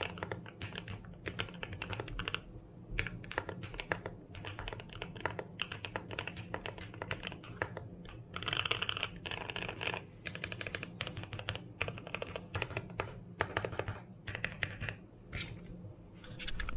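Typing on a TU40 mechanical keyboard in an aluminium case with KTT Strawberry switches: fast runs of key clicks in bursts with short pauses, the odd deeper space-bar stroke among them.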